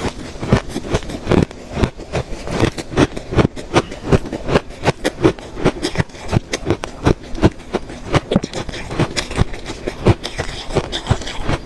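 Close-up crunching of freezer ice being bitten and chewed: a fast, steady run of sharp crunches, several a second.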